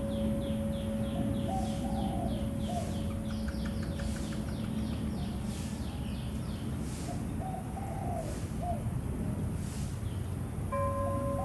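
Small birds chirp in a quick run of short falling notes while another bird coos twice, over the fading hum of a temple bell. The bell is struck again near the end.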